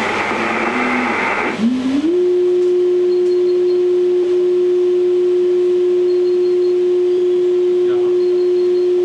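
Shortwave receiver hiss, then a single steady carrier tone heard through an amateur radio transceiver. The tone slides up in pitch as it is tuned in, about two seconds in, and then holds at one low, unchanging pitch: a test carrier sent by a distant station so the received signal strength can be checked.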